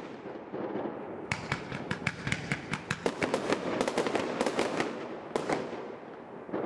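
A 100-shot 40 mm display fireworks cake firing: a rapid run of sharp bangs and cracks as the shots burst, starting about a second in and thinning out over the last second.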